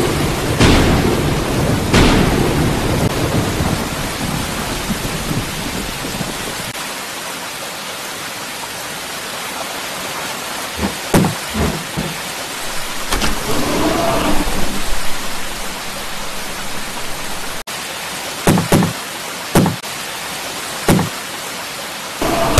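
Steady heavy rain with two sharp cracks of thunder in the first two seconds and a rumble that dies away over the next few seconds. Later come loud dull knocks in two spells, a few around 11 seconds in and a few more between about 18 and 21 seconds.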